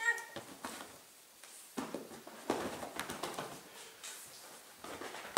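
A Ragdoll cat gives a short meow right at the start, then irregular scuffling and rustling as hands wrestle with her on a fabric recliner.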